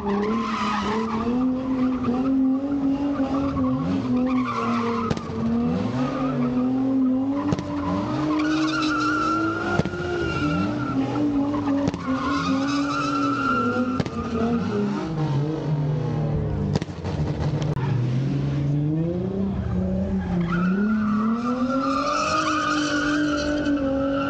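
Car engine held at high revs while the car drifts in circles, its spinning rear tyres squealing on the pavement. The revs rise and fall, and the tyre squeal swells up several times.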